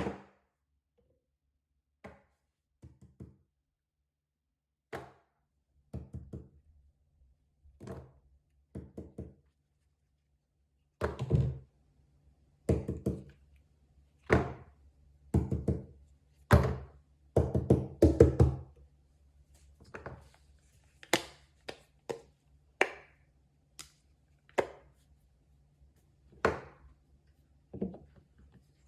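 Fidget toys being handled and set down on a hard surface: irregular thunks and taps, with quicker runs of knocks about eleven and eighteen seconds in.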